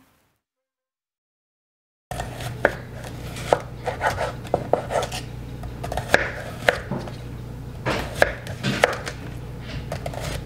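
Chef's knife slicing a cucumber into rounds on a wooden cutting board, each cut ending in a sharp knock of the blade on the board, about two a second. The slicing starts about two seconds in, after a silent gap.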